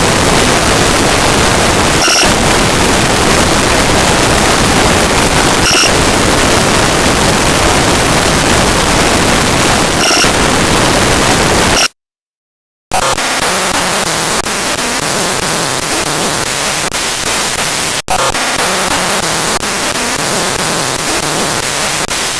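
Image file data played back as raw audio: harsh, dense static-like noise across the whole range, with faint regular ticks about every four seconds. It cuts out for about a second some twelve seconds in, then comes back as a thinner hiss with less bass, dipping briefly once later on.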